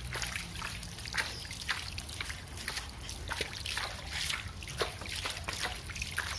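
Swimming pool water trickling and splashing: an irregular patter of small drips and splashes over a low steady rumble.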